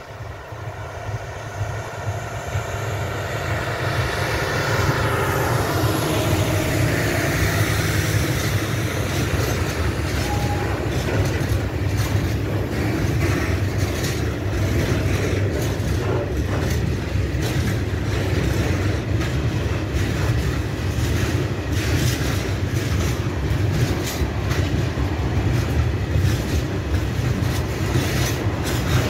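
Freight train of tank wagons passing close by. The locomotive's engine drone grows louder and falls in pitch as it goes past in the first several seconds. Then comes a steady rumble of the wagons, with quick wheel clicks over the rail joints.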